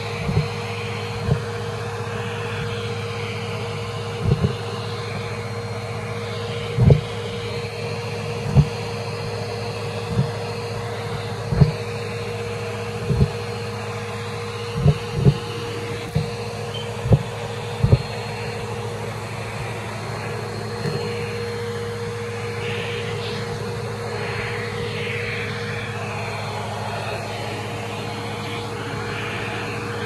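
Bissell Helix vacuum cleaner running steadily with its hose wand over carpet, a constant motor hum. About a dozen short thumps come through the first eighteen seconds, then only the steady hum.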